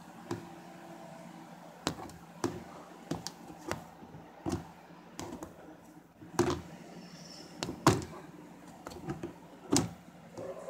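Irregular taps, clicks and knocks of fingers and Velcro strips against the thin wall of a plastic storage tote, about a dozen short sharp sounds, the loudest ones about six, eight and ten seconds in.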